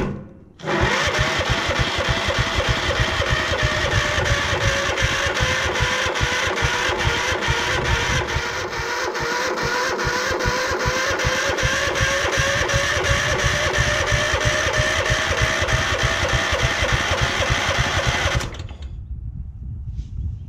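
Craftsman LT1000 riding mower's Kohler engine cranked over by its electric starter, jumped from a booster pack, for about eighteen seconds: a steady starter whine over an even chug of compression strokes, stopping near the end without the engine ever firing. It turns over with compression but won't catch, a no-start that the owner puts down to a failed ignition coil.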